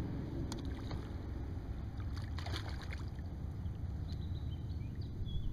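Steady low rumble of wind buffeting the microphone on a kayak, with a cluster of sharp clicks about two and a half seconds in from the spinning rod and reel being handled, and a few faint high chirps near the end.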